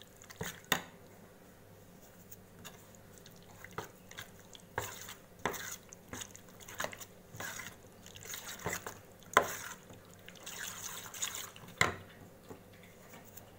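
Metal spoon mixing thick, wet marinade paste in a stainless steel bowl, with irregular clinks and scrapes of the spoon against the bowl.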